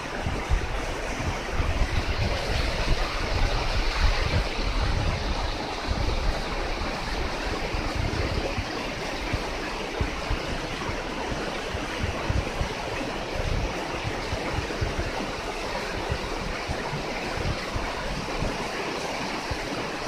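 A small waterfall splashing steadily onto rocks, flowing fairly strongly, with an uneven low rumble underneath.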